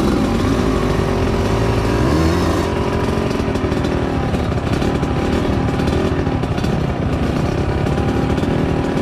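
Small motorcycle engine running steadily under throttle, its pitch rising about two seconds in and wavering with the throttle after that.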